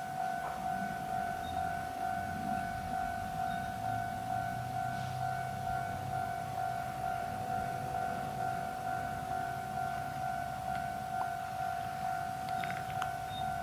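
A level-crossing warning alarm rings on one steady repeating tone. Under it, the low rumble of the KiHa 2403 diesel railcar as it pulls slowly away.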